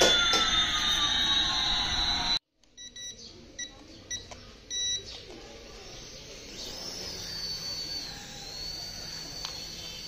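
A toy Airbus A380's electronic jet sound effect, two sliding tones, one rising and one falling, cuts off abruptly about two seconds in. A few short electronic beeps follow. From a little past halfway, the small electric rotor motor of an HX708 RC helicopter spins up to a steady high whine that wavers slightly.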